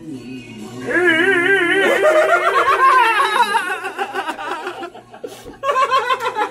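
A man singing long notes with a heavy, wide vibrato, starting about a second in, with laughter mixed in.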